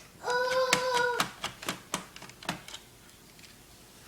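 A brief steady whine, then a string of small sharp clicks and taps from screws and a screwdriver being worked on a laptop's plastic case.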